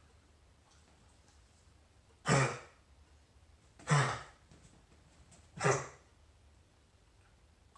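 Three harsh coughs, evenly spaced about a second and a half apart, each a short sudden burst.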